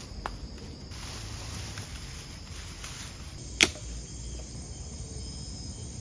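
Steady high chirring of forest insects, with one sharp snap about three and a half seconds in.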